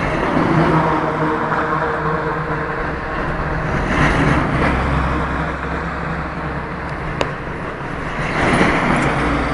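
Highway traffic of trucks and buses: engines running with a steady low hum under road noise, swelling louder about a second in, at about four seconds and again near the end as vehicles pass. A single sharp click a little after seven seconds.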